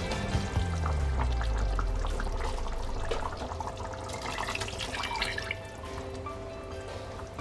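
Background music, with water poured from a bowl splashing into a pot of goulash about halfway through.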